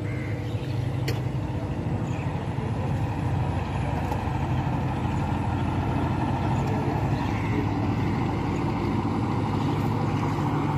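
Steady low engine drone, with a faint click about a second in.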